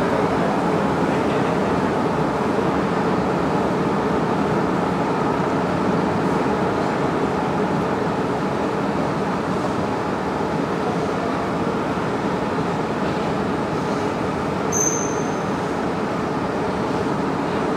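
Long station escalator running with a steady mechanical drone. A brief high squeak comes about fifteen seconds in.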